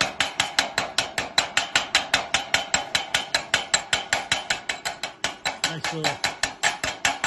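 A hammer tapping rapidly on a steel plate, knocking slag off a fresh weld bead: sharp metallic taps at an even pace of about five or six a second, stopping abruptly near the end.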